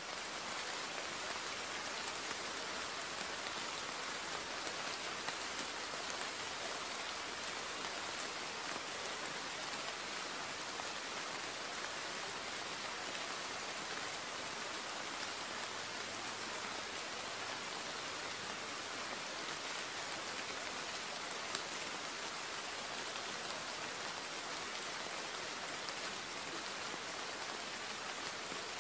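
Steady rain: an even hiss that does not change over the whole stretch.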